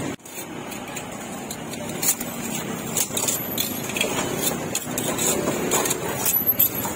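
Street ambience: motor traffic running past and faint distant voices, with a few sharp clicks and clinks scattered through.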